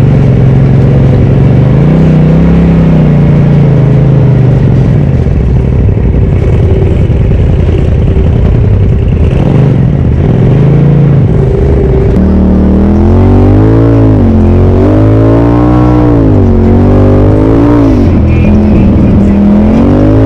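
Polaris RZR Turbo side-by-side's engine running on the trail, its pitch swelling slowly at first, then rising and falling repeatedly from about twelve seconds in as the throttle is worked on and off.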